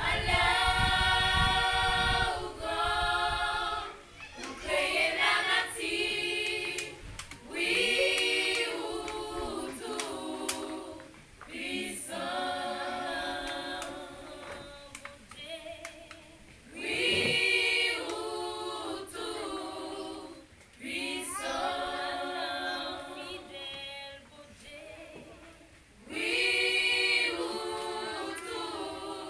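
A small choir of women singing a cappella in harmony, in sung phrases of a few seconds each with short breaks between them.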